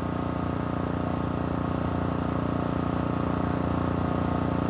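An engine idling steadily close by, an even, unchanging run with a low regular pulse.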